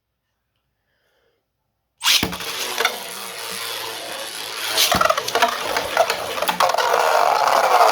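Silence for about two seconds, then 3D-printed Beyblades are launched all at once and spin in a plastic stadium, scraping across the floor with rapid clicks and sharp clacks of collisions. The clatter grows louder near the end as the tops clash, ahead of a knockout into a stadium pocket.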